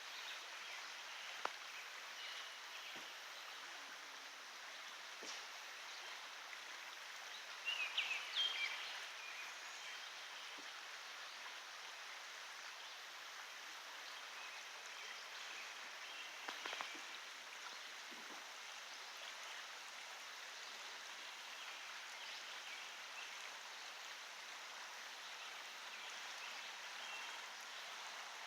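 Creek water running steadily, an even rushing hiss, with a couple of brief louder bursts about eight seconds in and again around seventeen seconds.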